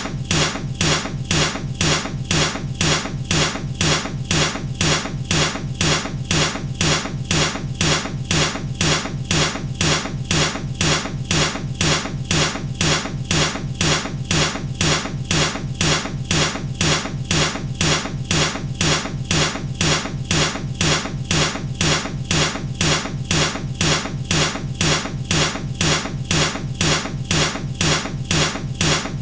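Baseball bat striking something over and over, a sharp knock repeating in a steady, even rhythm as a looped sound effect.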